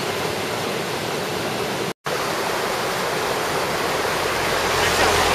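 Fast mountain stream rushing over rocks: a steady roar of whitewater. It drops out for a moment about two seconds in.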